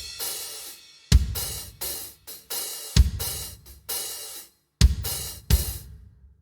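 Sampled acoustic drum kit from the Stigmatized Drummer Kontakt library, playing four loud kick-drum hits each paired with a cymbal crash, with shorter cymbal strikes in between. Near the end the cymbals cut off suddenly and only the low drum tail dies away.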